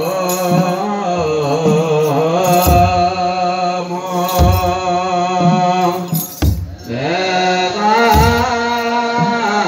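Ethiopian Orthodox wereb hymn: a group of male voices chanting together, with deep beats of a large kebero drum about every one and a half to two seconds. The chant breaks off briefly about two thirds of the way through, then resumes.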